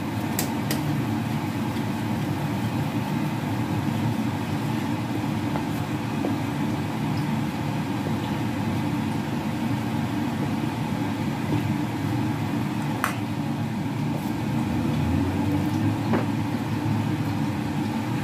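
A steady low background rumble, with the soft scraping of a spoon stirring dry flour in a metal bowl and a few light clicks of the spoon against the bowl.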